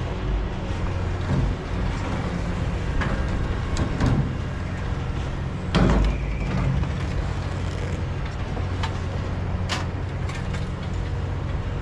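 A vehicle engine idling steadily, with several sharp clanks and knocks of scrap being unloaded. The loudest knock comes about six seconds in.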